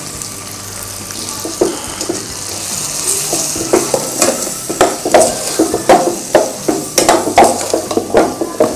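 Vegetables and sambar powder sizzling in oil in a stainless steel pot while a ladle stirs them, scraping the pot about two to three times a second. The scraping grows louder from about four seconds in.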